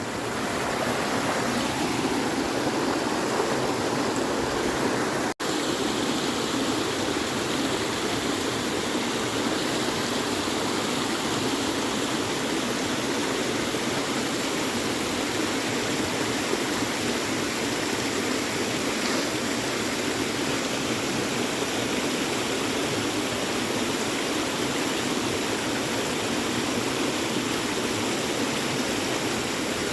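Creek swollen after heavy rain, its water rushing in a steady, even noise; the sound cuts out for an instant about five seconds in.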